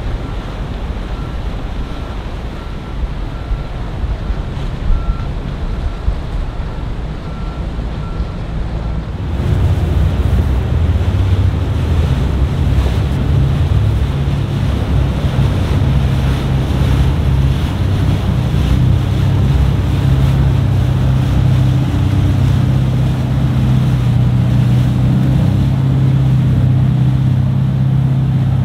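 Motor yacht cruising past with water rushing and wind on the microphone, and a faint beep repeating. About nine seconds in it gives way to a jet boat's engine running steadily and loudly, with a deep hum.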